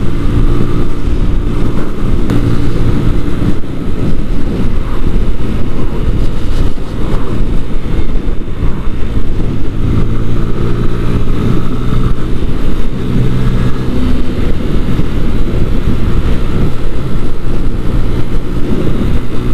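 A Sinnis Akuma 125cc motorcycle engine running steadily at cruising speed, with wind rushing over the rider's microphone.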